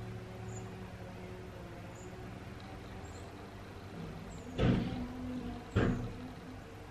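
Two knocks or thumps, a little over a second apart, over a faint steady low hum.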